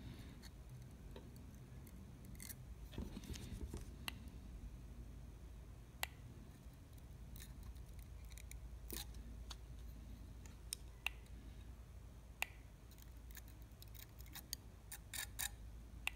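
Faint, scattered small clicks over a low steady hum, single ones at first and a quick run of them near the end, from handling a vape mod and its rebuildable atomizer deck while the freshly built coils are dry-fired and adjusted to glow evenly.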